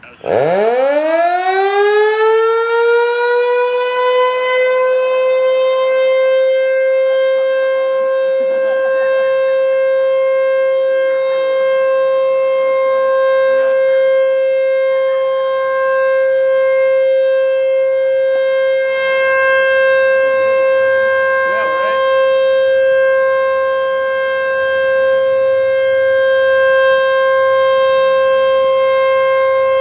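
American Signal T-128 outdoor warning siren starting up: its pitch rises steeply over the first few seconds, then holds one loud, steady tone for its scheduled monthly test.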